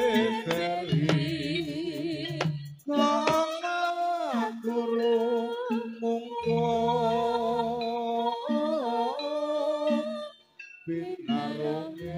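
Javanese gamelan-style vocal sung into a microphone over a PA: long held notes decorated with wavering ornaments and slow downward glides, over a low steady tone. The singing breaks off briefly near the end, then resumes.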